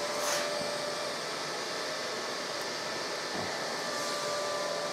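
Steady whir of moving air with a faint steady hum, like a fan running, and one light knock about three and a half seconds in.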